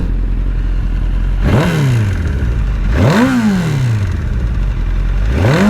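Suzuki GSX-R1000 inline-four engine revved three times, each rise in pitch quick and the fall slower, over a steady low rumble. Under it runs a rattle that the rider suspects is the cam chain.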